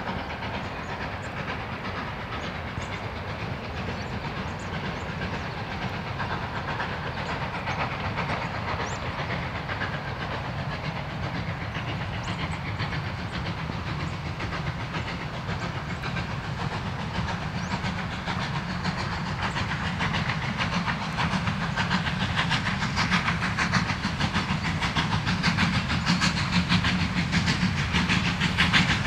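Ex-Victorian Railways 2-8-0 steam locomotive J549 working hard up a steep 1 in 40 grade. Its exhaust grows steadily louder as it approaches, and the beats become plainer in the second half.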